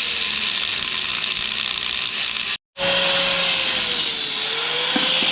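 Angle grinder with a cut-off wheel cutting through a steel roll-cage mount. It runs with a steady high hiss, and its motor pitch sags and recovers as the wheel bites. It breaks off briefly just past halfway.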